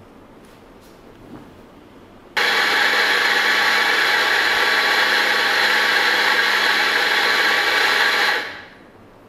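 Electric espresso grinder grinding coffee beans into a portafilter. The motor starts abruptly a couple of seconds in, runs at a steady whine for about six seconds, then winds down.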